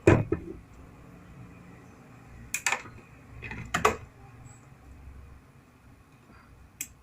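Four sharp clicks and knocks spread out over a few seconds, from wires and a washing machine drain pump being handled while it is hooked up to mains power, over a faint low hum.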